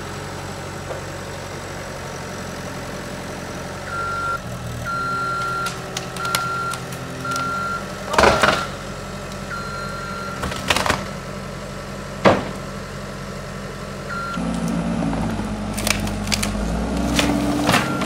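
Cat 259B3 compact track loader's diesel engine running, its backup alarm beeping in short repeated tones, while the bucket breaks into a wooden garage with several sharp cracks and crashes of splintering lumber. About two thirds of the way through, the engine gets louder as the loader works harder.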